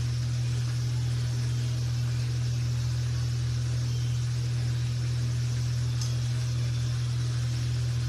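Steady low machine hum with an even hiss over it, like a fan or motor running, unchanging throughout.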